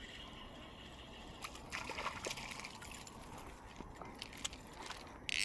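A small hooked bass splashing at the surface of a pond as it is reeled in and lifted out of the water, with water trickling off it; most of the splashing comes about two seconds in. A duck quacks at the very end.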